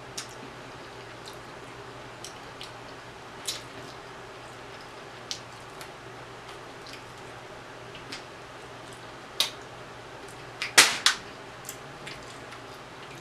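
Chewing rotisserie chicken and sucking meat off the bone: scattered wet mouth clicks and lip smacks, with a louder cluster of smacks about eleven seconds in.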